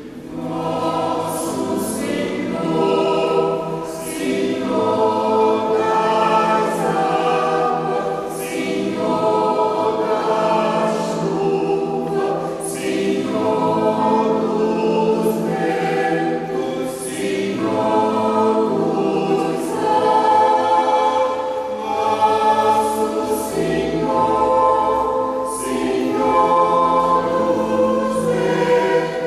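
A choir singing with piano accompaniment, many voices holding and moving between notes, with crisp sibilant consonants every second or two.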